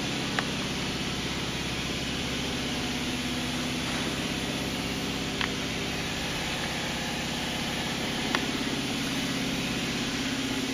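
Hobart V1401 140-quart floor mixer running with its wire whip in the empty bowl: a steady motor and gear-drive hum. Three short clicks come at about half a second, five and a half and eight and a half seconds.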